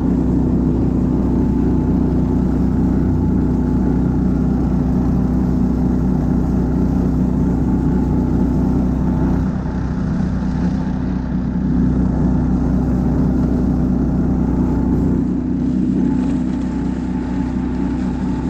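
Husky motorized snow tow (motor-dog) engine running steadily under load as it pulls two people over the snow, a loud even drone. It eases slightly about ten seconds in and again near fifteen seconds.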